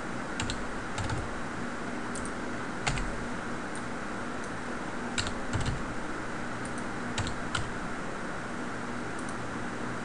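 Computer keyboard keys and mouse buttons clicking, a dozen or so sharp clicks in irregular small clusters, over a steady hiss and a faint low hum.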